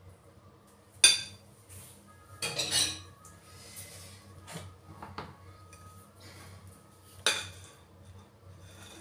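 Metal cutlery clinking and scraping against a glass mixing bowl full of cake batter. A sharp clink comes about a second in, a cluster of clinks follows around three seconds, then a few lighter taps and another sharp clink near the end.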